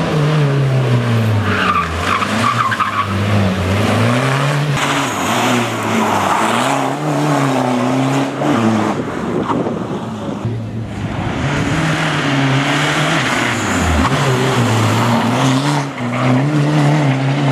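Škoda Fabia rally car's engine revving hard through corners, its pitch climbing and dropping again and again, with tyre and gravel noise over it.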